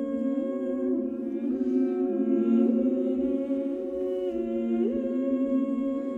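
A cappella choir singing slow, held notes in close harmony. The voices overlap and step to new pitches one at a time, without breaks between them.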